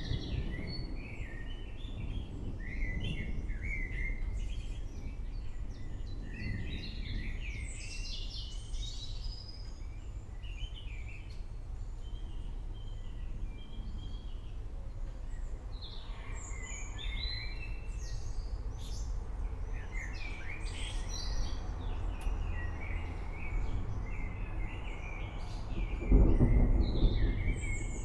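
Many birds chirping and calling over a steady low rumble, with a louder roll of thunder near the end.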